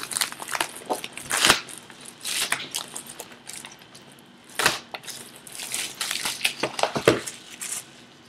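Clear plastic shrink wrap being torn and peeled off a sealed box of baseball trading cards, crinkling and crackling in irregular bursts.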